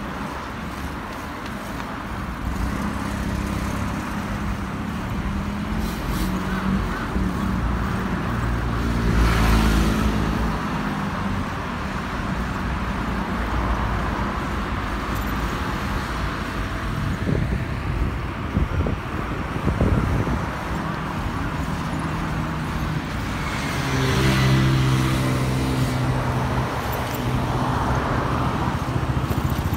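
Road traffic: car engines running and passing by with tyre noise. One vehicle passes close about a third of the way in, and a louder engine hum joins about four-fifths of the way through.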